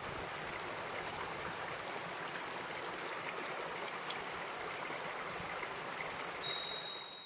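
Shallow stream running steadily, with a few faint ticks of a chopper blade against a bamboo shoot as it is peeled.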